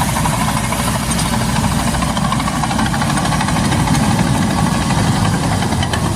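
Bulldozer's diesel engine running steadily with a fast, knocking beat.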